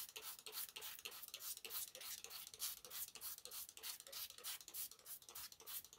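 Hand-held plastic-wrapped pad rubbing soapy wet merino wool on bubble wrap during wet felting. It makes faint, quick, even scrubbing strokes, several a second.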